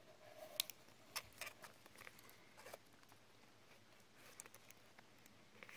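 Faint, scattered clicks and light taps of hands handling a dive watch and its rubber strap, at a near-silent level.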